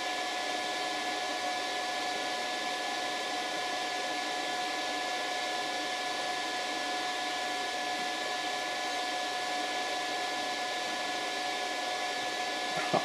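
Power inverter under a load of about 260 watts, its cooling fan running steadily with a whine held at a constant pitch. A brief tap near the end.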